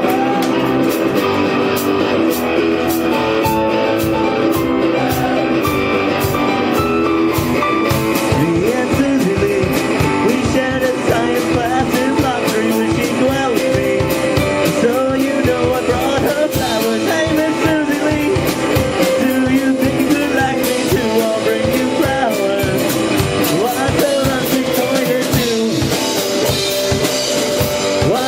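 Live rock and roll band playing a 1950s-style song on electric guitar and drum kit, with singing. A steady drum beat drives the first few seconds.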